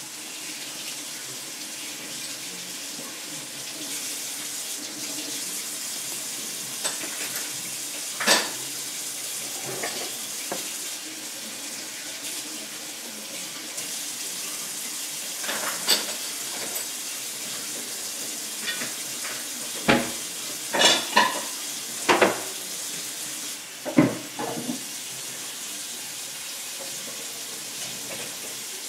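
Steady hiss like running water, with scattered sharp clinks and knocks, several of them close together between about twenty and twenty-five seconds in.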